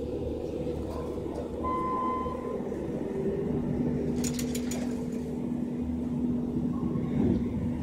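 Steady mechanical drone, with one short electronic beep about two seconds in and a brief cluster of clicks just past the middle.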